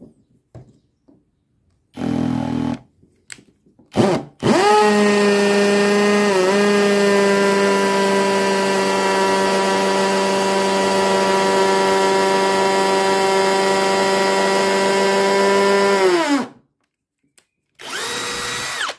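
Bosch UniversalImpact 18V 60 cordless brushless hammer drill drilling into brick with the hammer action on. A short trigger pull about two seconds in, then one steady run of about twelve seconds that dips briefly as the bit bites and winds down at release. A brief, higher-pitched run follows near the end.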